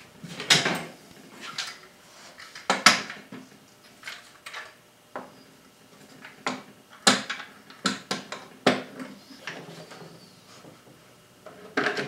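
Metal bar clamps being set and tightened around a glued wooden box: irregular clacks and clicks of the clamp bars and jaws, the loudest about three seconds in and about seven seconds in.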